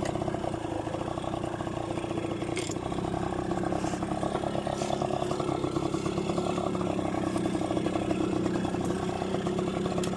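Yamaha V50's small two-stroke engine running steadily with a fast, even pulsing note, slightly louder in the middle stretch.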